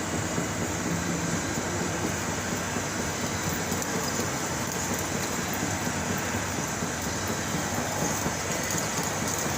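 Butler planing machine running steadily, a continuous dense mechanical noise.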